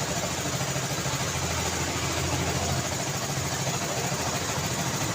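City street traffic: vehicle engines running with a steady low hum over continuous road noise. The hum swells briefly about a second in.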